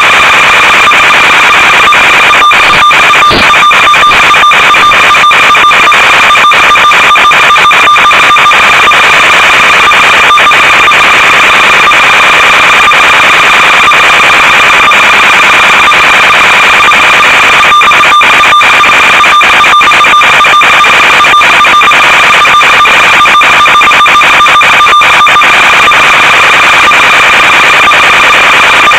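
Loud, steady electronic buzz and hiss from an analog FPV video link's audio channel, broken by runs of crackling static from about the third to the tenth second and again from about the eighteenth to the twenty-fifth.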